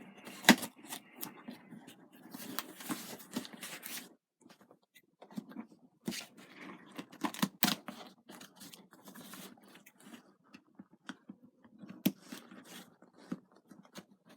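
Parcel packaging being torn open and handled by hand: irregular tearing, crinkling and sharp clicks, with a couple of short pauses.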